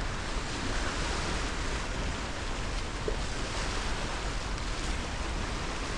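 Steady rush of sea water moving past a slowly cruising ship's hull, mixed with wind, heard from the deck.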